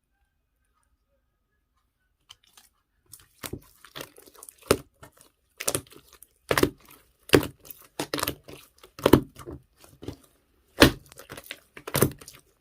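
Slime toy being squeezed and stretched by hand, giving irregular sharp crackling pops and squelches that start about three seconds in.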